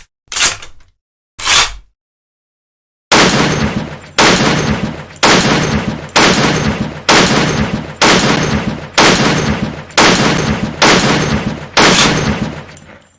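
Barrett M82 .50-calibre semi-automatic sniper rifle firing a string of about ten shots, roughly one a second, each ringing out until the next. Two short sharp sounds come before the string.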